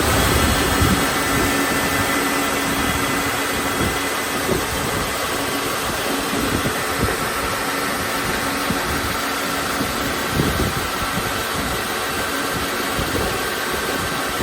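Brusa di Garboli 2LU 75 orbital belt sander for tubes running steadily: a hum and several steady whining tones over a broad hiss.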